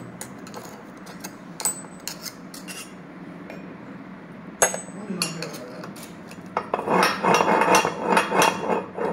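Metal clinks and scrapes as a knife and the steel cross blade of a dismantled hand meat grinder are handled on a plate among crumbs. There are scattered light clicks, one sharp clink about halfway through, then a few seconds of busy scraping and rattling near the end.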